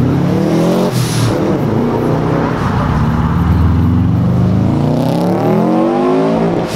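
Car engines revving hard as cars accelerate away, the pitch climbing and dropping with throttle and gear changes, with a sudden jump to a different car's engine note about a second in.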